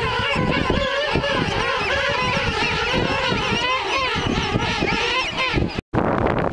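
A colony of king penguins calling at once, many overlapping calls with wavering pitch, over wind rumbling on the microphone. Just before the end the sound cuts out and gives way to wind and surf.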